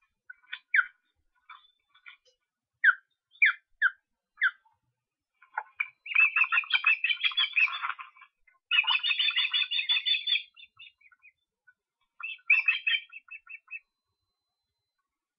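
Ospreys calling: a few short, separate high chirps, then two long runs of rapid, repeated chirping past the middle, and a shorter run near the end.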